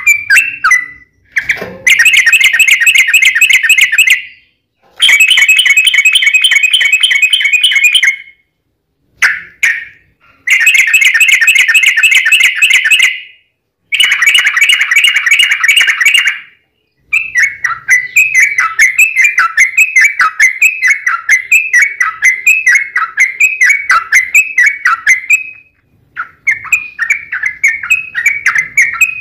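Yellow-vented bulbul (trucukan) song, loud: bursts of rapid chattering a few seconds long broken by short silent gaps, then a long run of repeated down-slurred notes, about three or four a second. It is the fast, aggressive 'fighting' song with long rolls that is played as a lure to provoke kept bulbuls into answering.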